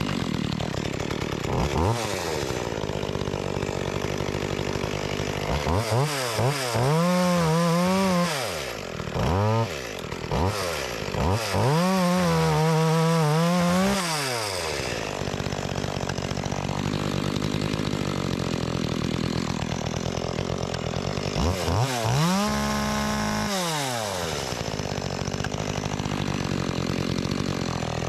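Makita EA3200S two-stroke chainsaw idling and revving up to full throttle three times, holding each rev for a few seconds before dropping back to idle. It is running pretty good after its repair.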